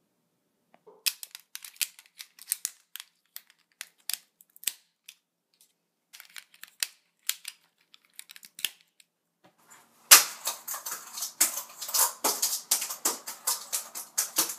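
Scattered sharp clicks and knocks as USB flash drives are handled and pushed into a white computer keyboard's side port, then fast, continuous typing on that keyboard from about ten seconds in.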